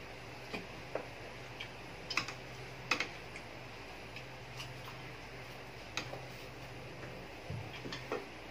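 Close-miked eating: chewing and handling crisp deep-fried frog and other food, heard as scattered sharp clicks and crunches, about one a second and irregular, the loudest about three seconds in. A faint low hum runs underneath.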